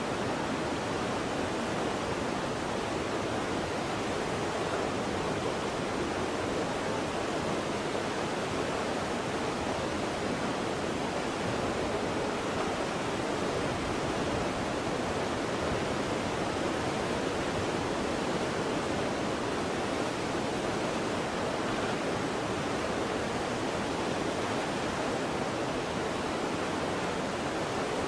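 Waterfall: water pouring and splashing in a steady, even rush, with no change or break.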